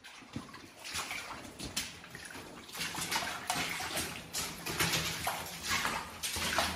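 Several people's boots sloshing and splashing through shallow water on a tunnel floor, steps coming about twice a second.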